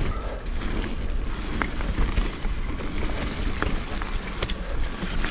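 Mountain bike rolling down a leaf-covered dirt trail: steady tyre rumble and wind on the microphone, with a few light clicks from the bike. No freewheel ratchet buzz is heard, because the rear wheel runs a Kappstein SF-Hub silent roller-clutch freewheel.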